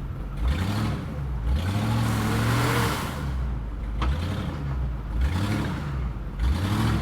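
Land Rover Discovery 2's engine revving up and dropping back about four times as it is driven off-road, with a rushing noise that swells with each rev.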